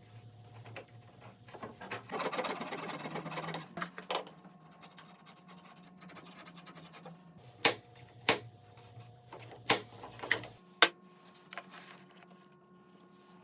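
Hand work on a wooden piece: a couple of seconds of rubbing or scraping about two seconds in, then four sharp clicks or knocks spaced a second or so apart, over a faint steady hum.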